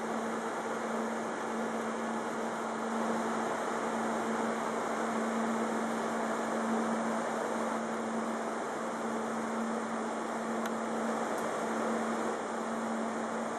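Steady electric hum with a constant low tone over an even rushing noise: the onboard equipment of a Kintetsu limited-express train standing at the platform, running without change.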